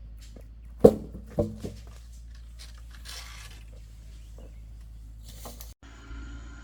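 Two loud knocks about a second in, half a second apart, with a fainter one after. Near the end, after a short break, a steady engine hum starts.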